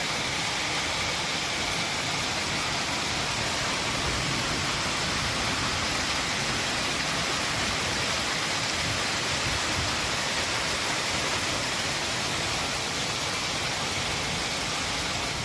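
Storm water: a steady, even rush of heavy water noise with no separate impacts.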